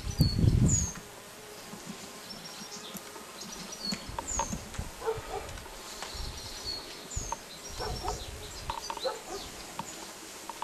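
Outdoor ambience through an open window: insects buzzing and small birds giving short high chirps. A low rumble in the first second as the camera is moved.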